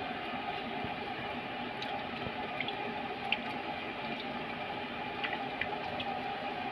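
Minced garlic sizzling in butter and a little oil in a frying pan: a steady hiss with a few small pops.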